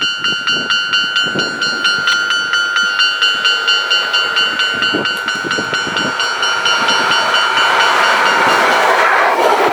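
Japanese level-crossing warning bell ringing in a fast, even, repeated ding, sped up to double speed, with a train passing that grows louder over the last couple of seconds and drowns the bell near the end.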